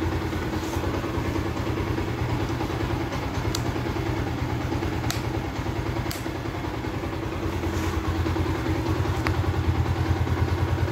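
Motorcycle engine idling steadily, with a few faint light clicks over it.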